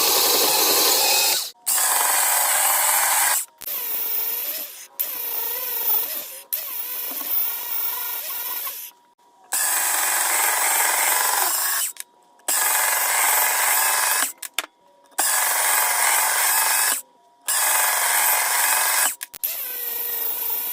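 A power tool cutting through steel threaded rod, a loud, steady, grinding hiss. It stops and restarts abruptly several times.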